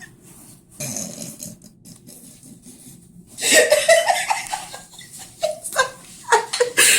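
People laughing in short, broken bursts, mostly in the second half.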